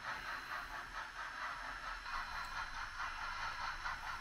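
HOn3 model steam locomotive and its freight cars running along the track: a steady rattle from the small motor, gearing and wheels.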